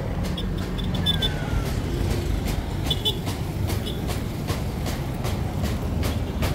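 Busy street traffic: a steady low rumble of running minibus and motorcycle engines, with faint voices, scattered sharp ticks and a few short high chirps in the first half.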